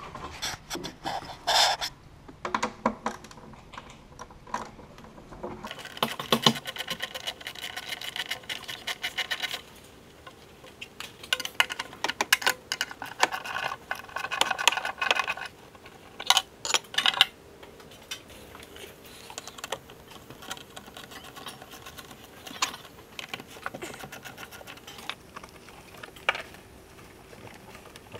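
Hand socket ratchet clicking in two longer runs of rapid clicks, a few seconds in and again about halfway through, amid scattered clinks and knocks of tools and metal parts while battery-box fasteners are undone.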